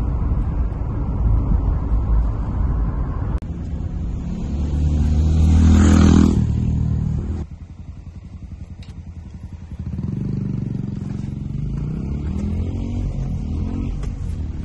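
Car driving, heard from inside the cabin: low engine and road rumble that grows louder and rises in pitch to a peak about six seconds in, then drops sharply, with further sudden jumps in level.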